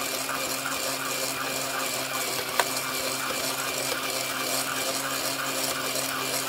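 Circular knitting machine being driven round by a battery-powered screwdriver: a steady motor hum under an even, rapid clatter of the needles, with one sharp click about two and a half seconds in.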